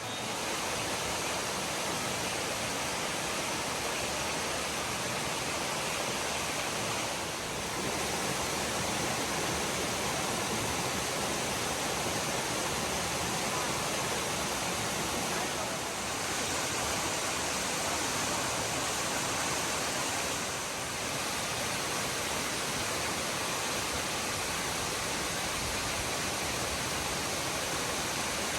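Glen Falls waterfall rushing: a steady, dense hiss of falling water, dipping slightly in level three times.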